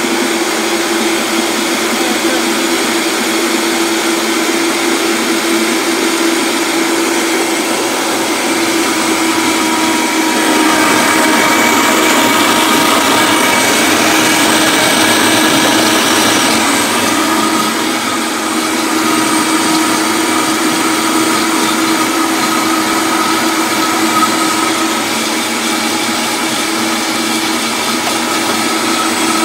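Vitamix 5200 blender running continuously, churning a thick frozen-fruit smoothie while the tamper pushes the mix down into the blades. Its steady motor whine gets louder and brighter for several seconds in the middle.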